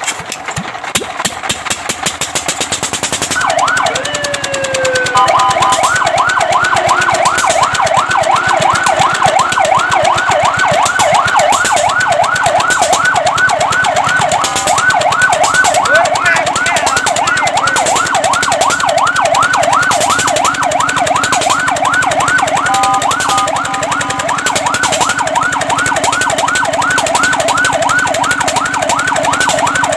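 Fire truck siren sounding a fast yelp, its pitch sweeping up and down about three times a second. A rapid pulsing sound leads in, then a brief slower wail about four seconds in. The yelp briefly switches to a different pattern a little past the two-thirds mark.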